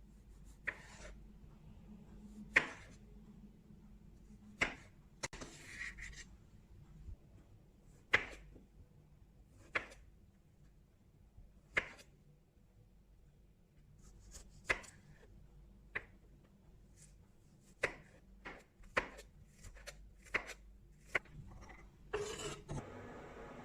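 A knife chopping on a cutting board in separate, irregular strokes, about one every second or two. A steady hiss starts near the end.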